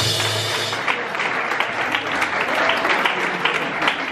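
The band's last note and a cymbal wash ring out and die in the first second, then dancers applaud with many hands clapping.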